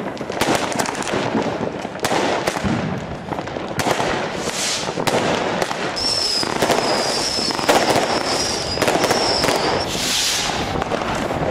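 New Year's Eve fireworks: rockets and firecrackers banging and crackling in quick, irregular succession. A high whistle runs from about six to ten seconds in, and hissing rushes come about four and ten seconds in.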